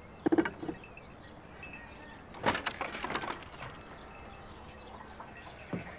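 A wooden barn door knocks and rattles as it is opened. About two and a half seconds in comes a short run of bright metallic jingling with a ringing, chime-like tail.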